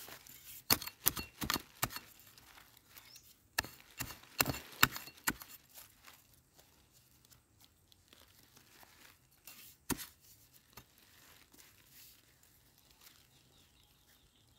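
A hand digging tool chopping and scraping into soil and roots while a wild yam tuber is dug out. There are two runs of sharp strikes, about a second in and about four seconds in, then a single strike near ten seconds, with softer scraping and crumbling between them.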